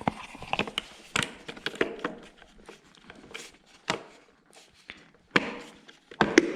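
Irregular clicks, taps and knocks of a lawnmower's air cleaner being fitted back together by hand, a few of them sharper and louder near the end.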